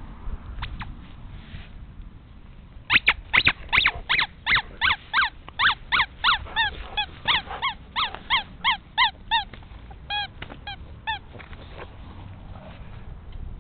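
Rubber squeaky dog toy squeezed by hand over and over: a quick run of short, high squeaks, about three a second, then a few more after a brief pause.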